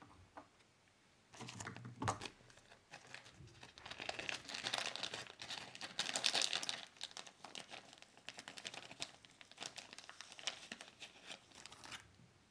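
Clear plastic packet of fly-tying material being handled, crinkling and rustling in irregular bursts from about a second and a half in until near the end, loudest about halfway through.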